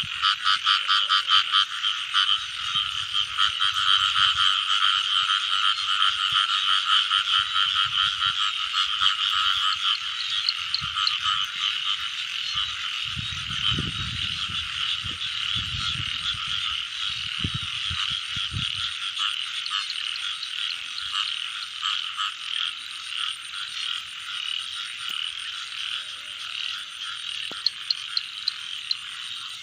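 Dense chorus of many frogs calling together at once, a steady pulsing croaking with no let-up. About halfway through, a few seconds of low thumps and rustling sound under the chorus.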